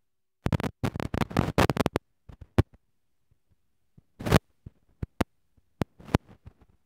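Paper and cardboard being handled: a dense run of crinkles and rustles in the first couple of seconds, then scattered single taps and scrapes as the small box is pressed onto the pink card.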